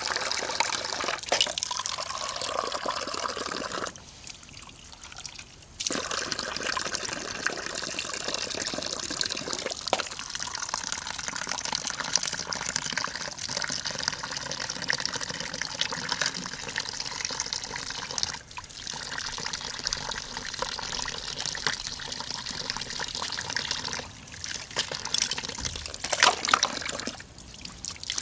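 A pot of oden broth bubbling at the boil over a wood fire, with a steady wash of bubbling and small pops. It drops away sharply for a couple of seconds about four seconds in, and briefly again several times later.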